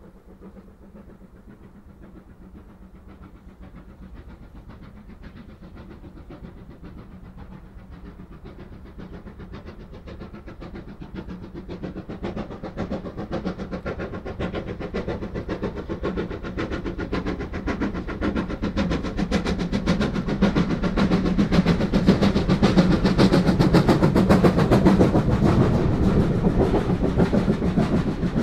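Great Western 2-6-0 steam locomotive 9351 approaching with a train, its exhaust beats growing steadily from faint to loud. It is loudest as it passes close by, followed by the clatter of the carriages rolling past near the end.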